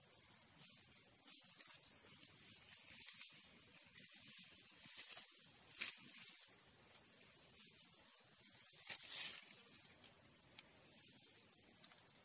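Insects trilling steadily at a high pitch, with two brief rustles in the leaf litter about six and nine seconds in.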